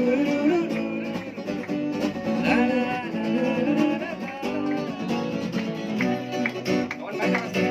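Music: a guitar-led instrumental passage between sung lines of a Hindi love song.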